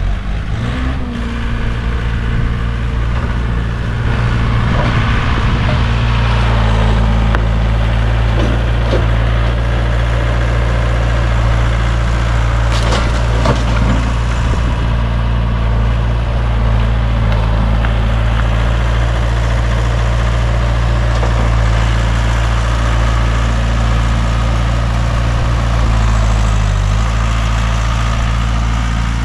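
Tractor engine running steadily, a little louder from about four seconds in, with a few sharp cracks near the middle.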